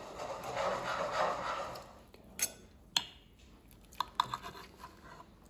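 Knife and fork cutting a cooked chicken thigh on a plate: about two seconds of the knife scraping as it saws through, then sharp clinks of cutlery against the plate, twice around the middle and a few more near the end.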